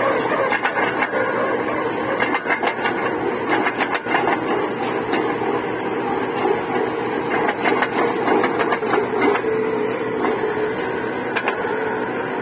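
Truck-mounted borewell drilling rig running steadily while drilling, its drill pipe boring into the ground, with a constant mechanical clatter and scattered knocks.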